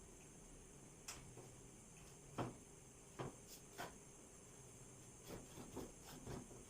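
Faint, irregular clicks and knocks of a hand wrench and metal parts as the 12 mm fork clamp bolts of a Honda Unicorn motorcycle are undone, the sharpest knock about two seconds in and a quick cluster of taps near the end.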